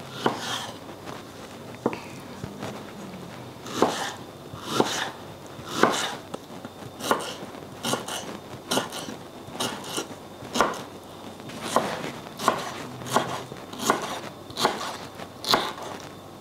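Chef's knife dicing peeled mango into cubes on a wooden cutting board: short knocks of the blade striking the board, irregular, about one a second.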